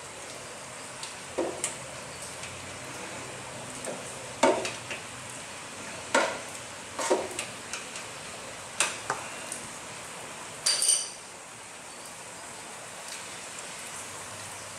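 Scattered metallic clinks and knocks of a wrench working at a stubborn oil drain plug, about eight in all, with one ringing clink near the end, over a steady background hiss.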